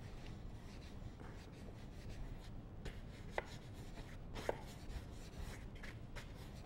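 Large bristle brush scrubbing oil paint onto a stretched canvas: faint rubbing strokes, with two short squeaky strokes a little past the middle.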